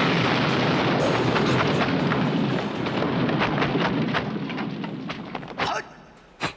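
Film sound effect of a fiery blast: a loud rush of flames full of crackles that slowly dies down over several seconds, followed near the end by two sharp hits.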